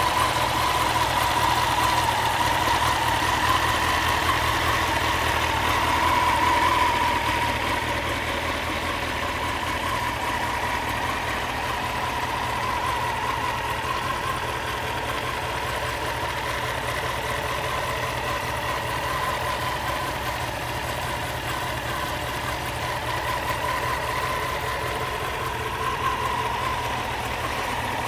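Honda CBR900RR Fireblade's inline-four engine idling steadily, a little louder for the first seven seconds or so.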